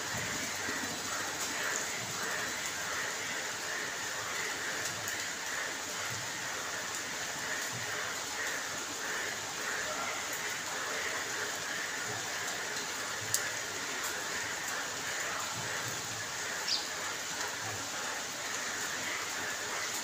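Steady rain falling on wet paving and puddles, an even hiss and patter. One sharp tick comes about thirteen seconds in, and a brief high chirp a few seconds later.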